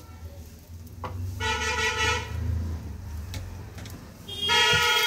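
A vehicle horn honks twice, each blast a steady, level tone about a second long. The second blast, near the end, is the louder. A low rumble runs underneath.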